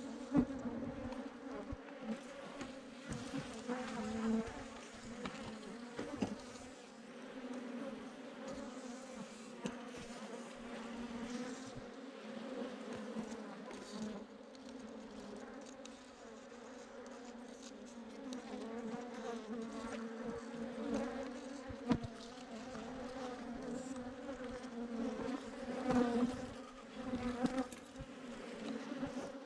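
A swarm of Africanized honey bees buzzing, a steady dense hum of many bees, with a few sharp knocks scattered through it.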